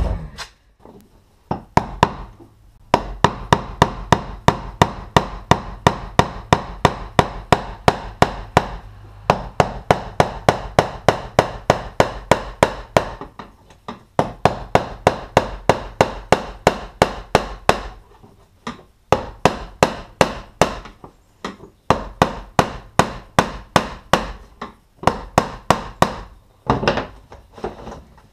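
Hammer strikes on the fuel pump retaining ring of a dropped fuel tank, fast and steady at about three to four blows a second in runs with short pauses. The ring is stuck and is being driven round to free it.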